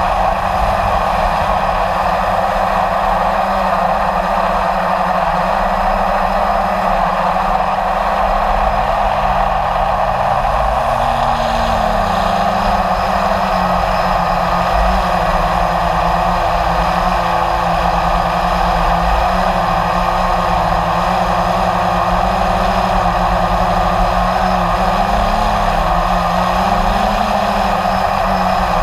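Blade 350 QX3 quadcopter's four electric motors and propellers whirring steadily in flight, heard from its onboard camera, their pitch drifting up and down as the throttle changes, over a low rumble.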